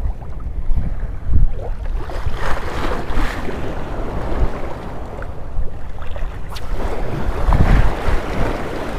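Wind buffeting the microphone in gusts over open sea, with water sloshing and lapping close by.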